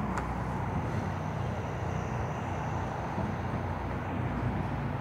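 Steady outdoor background noise with a low rumble and a faint, thin high tone above it.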